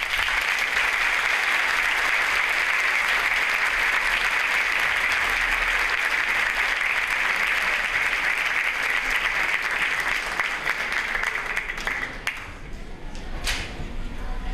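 Audience applauding, a dense steady clapping that begins at once and fades away about twelve seconds in.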